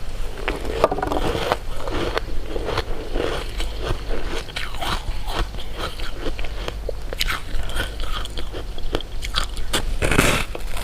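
Close-miked eating of sweets: biting and chewing, with many small crisp crunches and crackles and a louder bite near the end.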